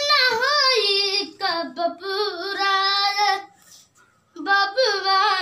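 A boy singing a Bhojpuri song unaccompanied, holding long notes with a wavering pitch. The phrase breaks off about three and a half seconds in, and he starts singing again shortly before the end.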